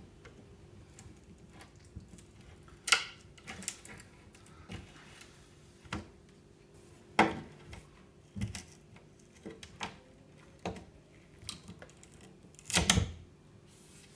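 A metal blade prying and scraping along the water-swollen chipboard edge of a desk, with scattered clicks, scrapes and crumbling; the sharpest clacks come about three seconds in, about seven seconds in and near the end.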